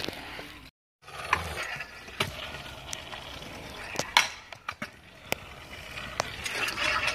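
Stunt scooters rolling on concrete: a steady rolling hiss of small wheels broken by several sharp clacks of landings and deck hits, the loudest a little past four seconds in. The sound drops out briefly just before one second in.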